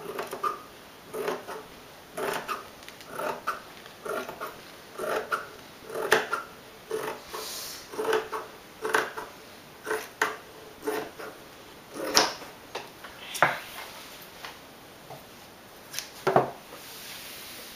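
Scissors cutting through thin, soft dress fabric laid on a wooden table, one snip about every second. Near the end a few sharper clicks, then a soft rustle as the fabric is handled.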